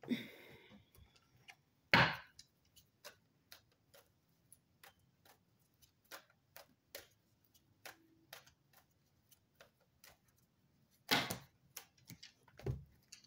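Tarot cards being shuffled by hand: a run of light, irregular clicks and taps of card edges, with louder knocks about two seconds in and again near the end.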